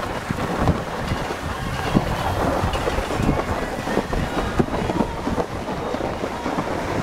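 Snow tube being towed up a tubing-hill lift, its underside sliding over groomed snow: a steady rough scraping with many small crackles.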